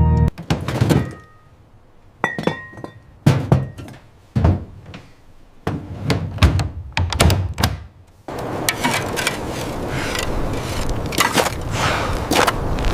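A series of heavy thunks and knocks, several seconds apart at first. From about eight seconds in, a steady noisy bed carries many closer-spaced knocks and clinks.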